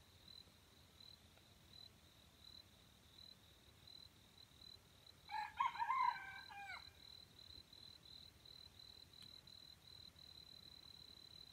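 A junglefowl rooster crows once, about halfway through: a short crow of about a second and a half that ends with a drop in pitch. Behind it a faint, high, pulsing insect chirp runs on.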